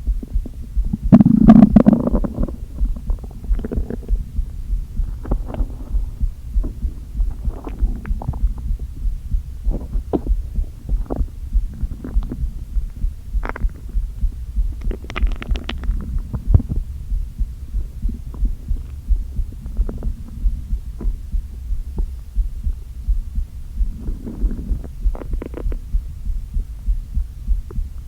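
An empty, hungry stomach gurgling and rumbling over a steady low heartbeat pulse. The loudest rumble comes about a second in, with shorter gurgles and squeaks around the middle and again near the end.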